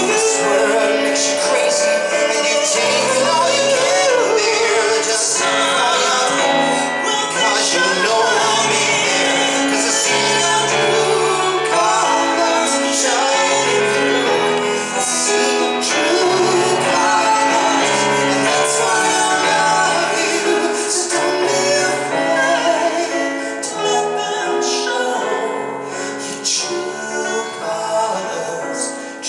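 Live singing with instrumental accompaniment: voices carry a slow song and hold long notes.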